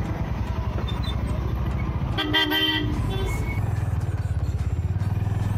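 Honda motorcycle's single-cylinder engine running at low road speed, its even firing pulse growing louder a little past halfway. A vehicle horn honks once, briefly, about two seconds in.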